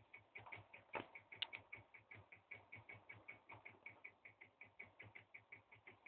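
Small pulse-type magnet motor running, giving off faint, even ticks at about eight a second, with a couple of sharper clicks between one and one and a half seconds in.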